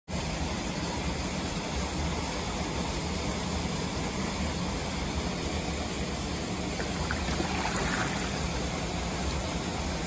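Steady rush of flowing water from a stream and small waterfall running into a rock pool.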